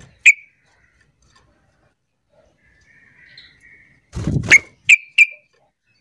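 Yellow-vented bulbul giving short, sharp chip notes: one about a third of a second in, and two about five seconds in. A faint, softer call sounds around three seconds in. Just after four seconds the bird moves on the perch with a brief, low flutter.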